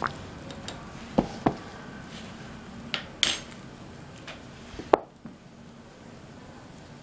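A hand mixing flour and water into dough in a stainless steel bowl: soft rubbing, broken by sharp clinks and knocks of the steel bowl, two close together just over a second in, two more around three seconds and one near five seconds.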